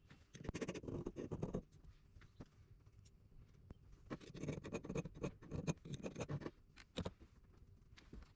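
Repeated rasping strokes of a hand tool on metal, a short run near the start and a quicker run of about two strokes a second in the middle, with a few sharp clicks between.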